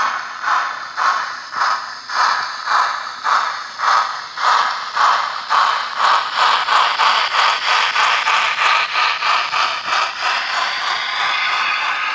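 Sound-fitted (DCC) 00 gauge model of a Duchess-class steam locomotive, its speaker playing exhaust chuffs that start at about one and a half a second and quicken as the locomotive pulls away, the beats running together near the end.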